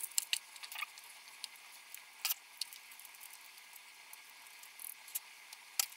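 Small, sparse clicks and crackles of the bulb's silicone-coated glass globe being picked apart with pliers, the shards held together by the coating; a sharper click about two seconds in and another near the end.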